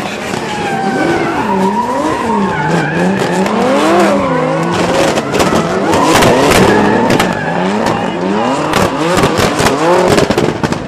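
Drift cars' engines revving hard, their pitch swinging up and down as the throttle is worked, with rapid exhaust crackles and pops and the screech of tyres skidding sideways.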